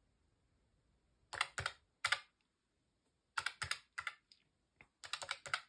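Calculator keys pressed in short runs of sharp clicks, with a quicker run near the end, as a column of income figures is added up to a total.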